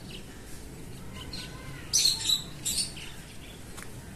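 Rose-ringed parakeet calling: two short, shrill calls close together about halfway through, with faint chirping around them.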